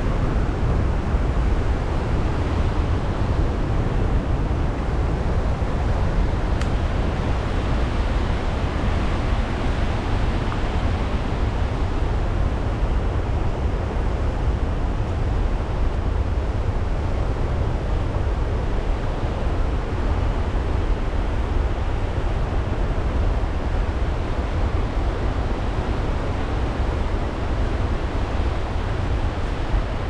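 Målselvfossen, a large river waterfall, rushing steadily: a constant heavy rush of falling water, heaviest in a deep low rumble.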